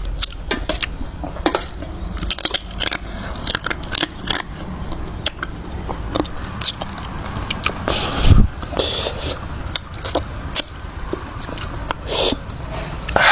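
Eating noises: many small clicks, clinks and scrapes of utensils and food on a plate, with a dull thump about eight seconds in.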